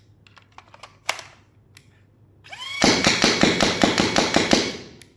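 AIT Lightning battery-powered foam dart blaster: its motors spin up with a rising whine, then it fires a rapid full-auto burst of about ten darts in under two seconds, emptying a 10-dart magazine, and winds down. A few sharp handling clicks come before the burst.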